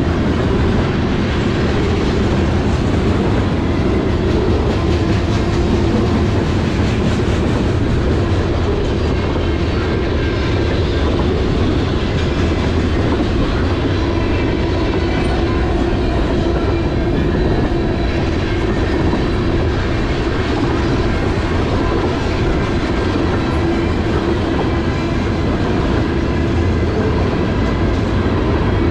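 Freight cars (tank cars and covered hoppers) rolling past close by, their steel wheels running over the rails with a steady, loud, unbroken noise.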